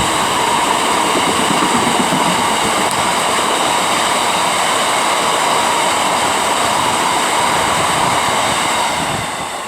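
Freight train hauled by a Class 60 diesel locomotive rolling past at close range: a steady rumble of wheels on rail with high, steady whining tones above it. It fades about nine seconds in as the train moves away.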